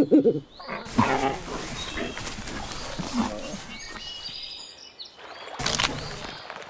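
Wild animal calls and growls, with a loud call at the start and a harsh hiss from a Eurasian lynx near the end.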